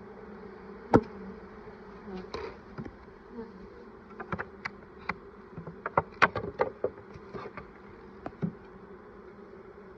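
Honeybees buzzing steadily from a freshly installed package colony. Sharp knocks and clicks from the hive's frames and inner cover being handled sit on top: one loud knock about a second in and a cluster of taps in the middle.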